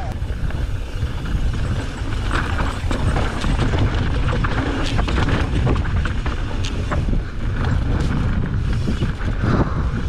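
Mountain bike riding fast down a dry dirt trail: tyre and trail noise with scattered rattles and knocks from the bike over rough ground, under heavy wind rumble on the microphone.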